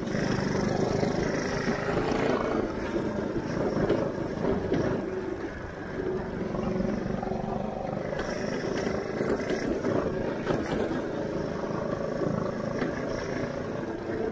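Shifter go-kart engine running steadily while the kart drives over a potholed road, with knocks and rattles from the jolts.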